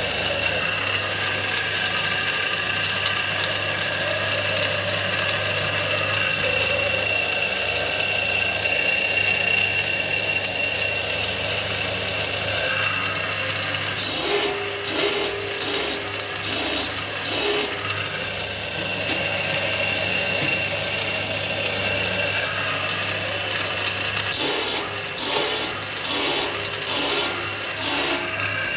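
Saw-sharpening grinder's electric motor running steadily with a hum and a high whine, while its grinding wheel sharpens the teeth of a large circular saw blade. Twice there is a run of about six short, harsh grinding strokes, roughly one and a half a second, as the wheel bites the steel.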